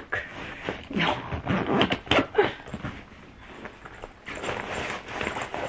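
Clothes and bag fabric rustling and scraping in irregular bursts as clothing is pushed and crammed into a full soft bag.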